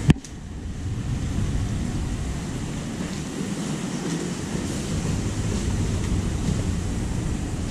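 Street ambience dominated by an irregular low rumble of wind buffeting the camera microphone. A sharp click comes right at the start.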